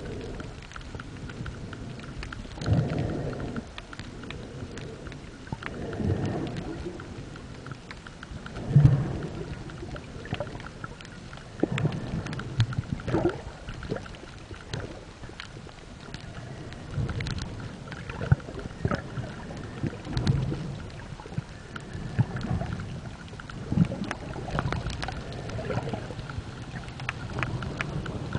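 Waves breaking over a shallow reef, heard underwater: muffled rumbling surges come every few seconds over a constant wash, the loudest about nine seconds in, with scattered sharp clicks throughout.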